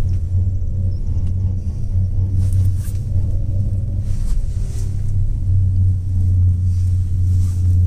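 Steady low rumble inside a moving Gulmarg Gondola cable-car cabin, swelling and easing slightly as it travels.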